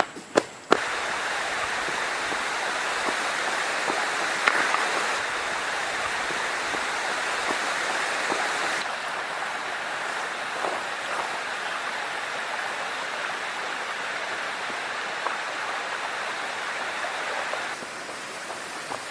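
Steady rushing of flowing water, cutting in suddenly about a second in, its tone shifting slightly a few times.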